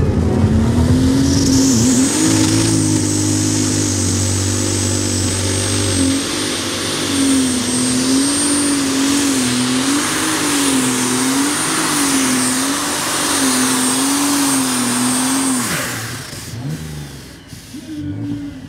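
Super Stock pulling tractor's turbocharged diesel engine running at full power down the track, with a high turbo whistle over it. The engine pitch wavers up and down through the pull. Near the end it drops sharply as the engine comes off power.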